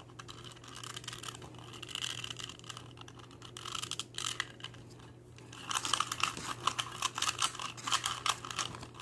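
Shengshou 2x2 speed cube being turned in the hands, its plastic layers clicking; scattered turns at first, then a fast run of turns from a little past halfway.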